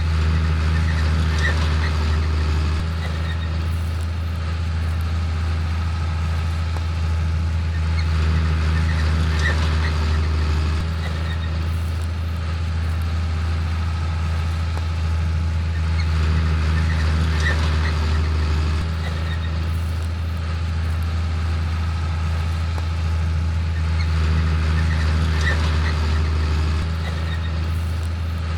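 Heavy farm machinery running: a tractor's diesel engine under a load that rises and falls in a regular cycle about every eight seconds. Each louder phase lasts about three seconds and carries metallic rattling and clicking.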